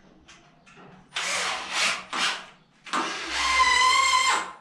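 Cordless drill driving a screw into a wall plug through an aluminium U-profile. After a few shorter bursts of noise, it runs with a steady whine for about a second and a half near the end.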